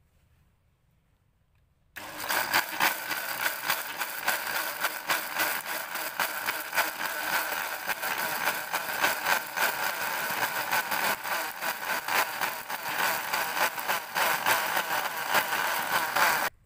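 Countertop electric blender switched on about two seconds in, running steadily while it blends peeled passion fruit pulp, with a constant rattle under the motor whine; it stops suddenly near the end.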